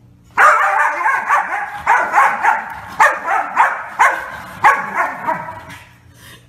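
Corgi barking and whining in a rapid run of yelps, starting abruptly about half a second in and fading out near the end.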